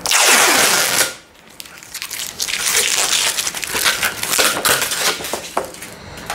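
Protective plastic film being peeled off a glass bath-screen panel: a loud rip for about the first second, then after a short pause a run of crackling and crinkling as more film comes away and is bunched up.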